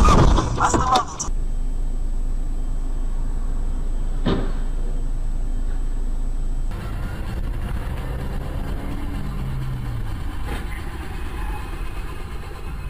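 Dash-cam audio from inside a car: a loud burst of bangs in the first second, then steady low engine and road rumble with a single sharp knock about four seconds in. The rumble changes character about two-thirds of the way through and carries on.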